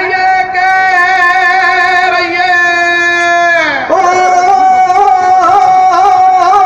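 A man singing into a microphone in a high voice, holding long wavering notes, with one slide down in pitch a little past halfway before the next held note.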